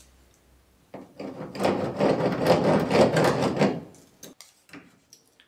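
Soft pencil scratching along the rough carbon-fibre laminate as a cutting line is traced: a continuous scratchy rasp for about three seconds, followed by a few light taps.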